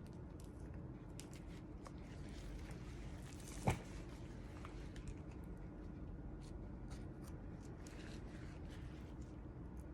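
Faint knife cutting and scraping at a wolf foot's hide as it is skinned, in soft scratchy ticks over a steady low hum, with one sharp click a little before four seconds in.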